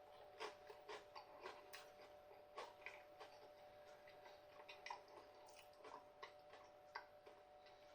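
Faint, irregular crisp clicks of someone chewing a crispy breaded chicken toast with sesame seeds, over a faint steady hum.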